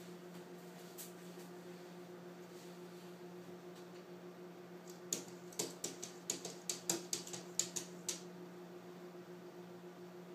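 A cat pawing at a window pane, its paw and claws tapping the glass: about a dozen quick sharp taps over roughly three seconds, starting about five seconds in. A steady low hum runs underneath.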